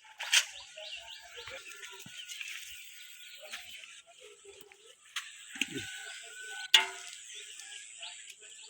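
Small birds chirping busily over a thin, steady high tone, broken by sharp clicks or knocks: one just after the start, one about five seconds in, and the loudest near seven seconds in.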